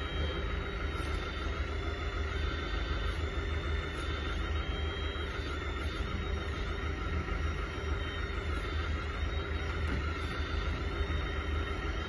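Hydraulic pump of a remote-controlled model 636 loader running with a steady hum and a high whine that dips and recovers several times as the bucket and lift arm are worked.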